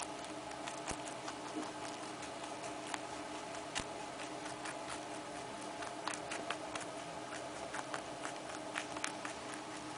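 A small furry pet nibbling and chewing a piece of carrot: quick, irregular crunching clicks that come thicker in the second half, over a low steady hum.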